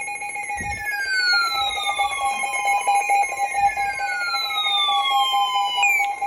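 Emergency Alert System attention signal, a loud electronic alarm that starts abruptly and signals an incoming severe thunderstorm warning. Steady tones sound together throughout, with two long falling pitch sweeps of about three seconds each over them.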